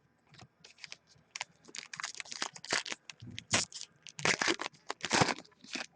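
Trading-card packs being handled and torn open: a run of crinkling, tearing wrapper noises, growing louder from about halfway through with several longer rips.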